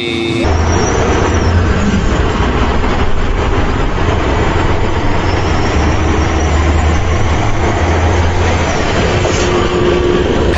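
A heavy vehicle's engine running steadily, with a strong low drone and a dense noisy texture.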